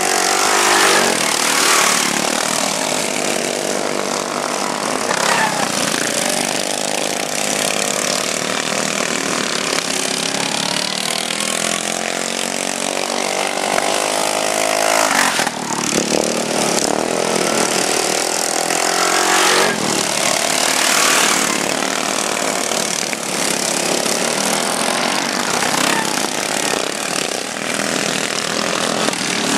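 Racing riding lawn mowers' small engines running hard at high revs, their pitch rising and falling again and again as several mowers pass.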